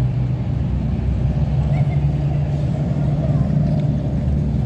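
Car engine running steadily with a low rumble while the vehicle moves slowly along the road, with faint voices in the background.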